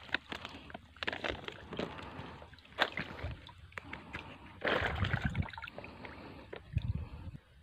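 Irregular rustling and wet sloshing from a woven plastic sack of freshly caught fish being handled, with scattered small ticks and taps.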